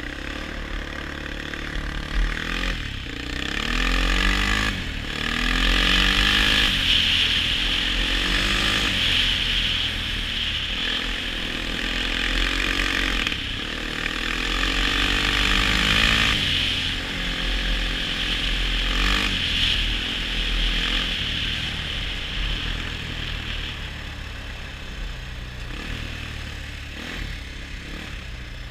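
ATV engine accelerating hard, its note climbing and dropping back several times as it shifts up, then running more evenly near the end. A loud hiss of wind and tyres on snow-covered ice runs with it while the quad is at speed.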